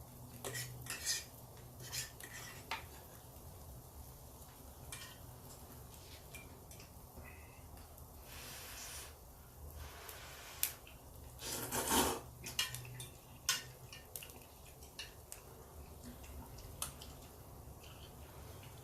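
Cutlery clinking and scraping on a plate during a meal, in scattered short clicks, with a brief louder scrape about twelve seconds in.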